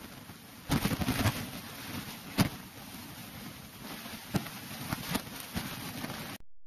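Rushing water in a canyon pool below a small waterfall, stirred by a swimmer, with several sharp knocks, the loudest about a second in and about two and a half seconds in. The sound cuts off suddenly near the end.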